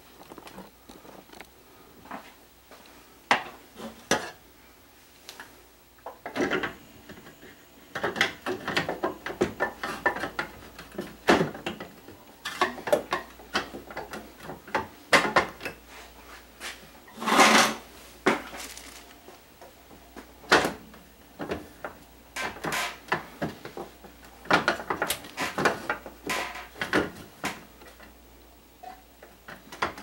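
Plastic top vent panel of an over-the-range microwave being fitted back in place and screwed down with a hand screwdriver: scattered clicks, knocks and scrapes, the loudest about halfway through.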